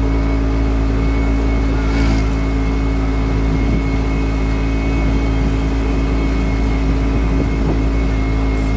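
Motorcycle tricycle's engine running at a steady speed, with a constant drone and road and wind noise heard from the sidecar cab. A brief click comes about two seconds in.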